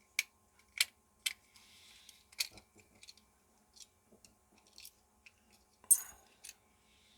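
Sharp clicks and taps from small plastic parts of a battery wall-clock mechanism being handled and pressed, about a dozen separate strokes with the loudest near the end.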